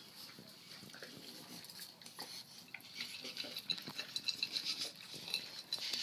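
A dog eating from a bowl: faint, quick clicks and clinks that get busier about three seconds in.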